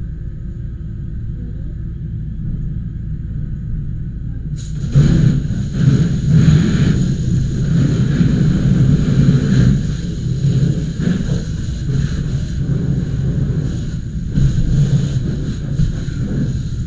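Steady low engine rumble. About five seconds in, a loud, uneven rushing noise starts suddenly and carries on over it.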